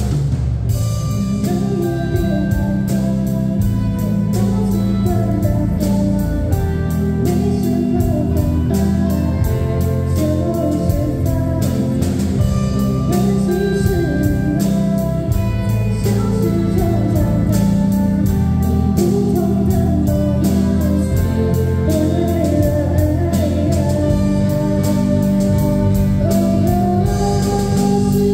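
Live student rock band playing a pop-rock song through a PA: a girl's lead voice singing over electric guitars, keyboard and a steady drum-kit beat.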